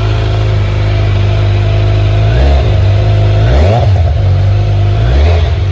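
Kawasaki Z900's inline-four engine idling loudly through its exhaust and blipped three times on the throttle, about two and a half, four and five seconds in, each rev rising quickly and dropping back to idle, the middle one the highest.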